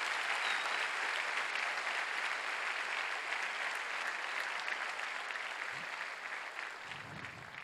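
A large audience applauding, many hands clapping at once in a dense, even patter that slowly dies away over the last couple of seconds.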